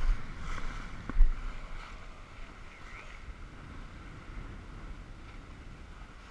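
Wind buffeting the head-mounted camera's microphone over the steady rush of water along a Tanzer 22 sailboat's hull under sail. The wind rumble is gusty with a loud thump about a second in, then settles.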